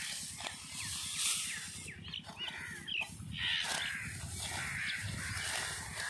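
Dry wheat stalks rustling and crunching as they are gathered and cut by hand, with birds calling in short chirps and harsher caws over it.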